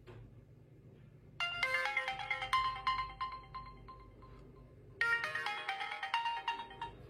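A melodic ringtone playing from a Realme C21 phone's replaced loudspeaker (buzzer) in two phrases, the first starting about one and a half seconds in and the second about five seconds in. It shows that the makeshift replacement speaker works and the phone rings again.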